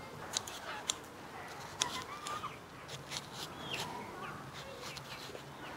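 Birds chirping with short, scattered calls, over several sharp clicks and taps.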